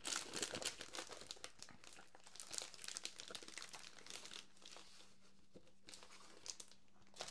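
Clear plastic packaging sleeve crinkling and rustling as it is handled and pulled open, a faint irregular crackle that thins out about five seconds in.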